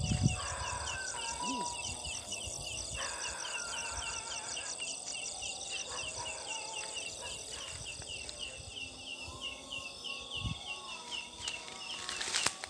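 A steady, rapid series of short, chick-like chirps, about four a second, from the night insect called ciang ciang, which is identified here as a leaf insect (belalang daun). A few longer, lower notes come and go behind it, and there is a sharp knock near the end.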